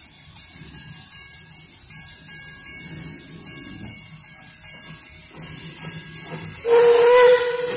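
Level crossing warning bells ringing faintly, then a narrow-gauge NA-class steam locomotive sounds a loud, steady whistle blast about seven seconds in as it approaches the crossing.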